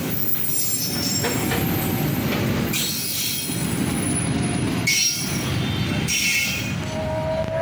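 Railway fuel tank wagons of a freight train rolling past: a steady rumble of wheels on rail, with short high-pitched squeals coming and going several times.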